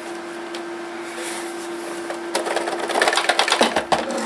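The plastic case of a 1980s Aiwa twin-deck boombox creaking and clicking as its halves are worked apart, the screws out. A rapid run of small clicks and creaks starts about two and a half seconds in, over a steady hum.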